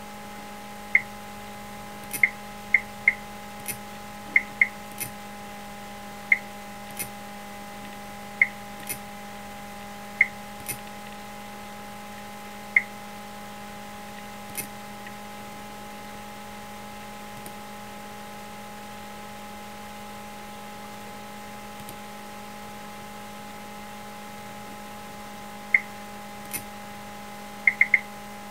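Irregular short, sharp clicks, some in quick pairs and a cluster near the end, as the menus of a computer program are clicked through. Under them runs a steady electrical hum.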